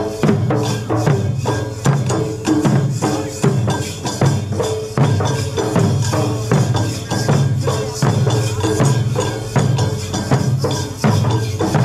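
Karnataka folk drumming on dollu barrel drums: a fast, driving, steady rhythm of many strikes a second, with jingling metal percussion over it.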